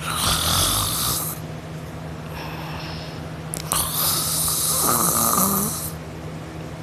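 A sleeping person snoring: two loud, noisy snoring breaths, the first about a second long with a low rattle, the second longer and starting near the middle, with a fainter breath between them. A steady low hum runs underneath.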